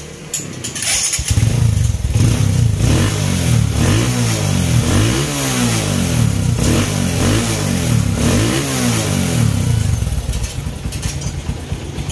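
Kawasaki Bajaj CT125's single-cylinder four-stroke engine starting about a second in, then revved up and down about six times with the throttle before settling to idle. It runs with no audible valve tick, the valve clearance having just been adjusted.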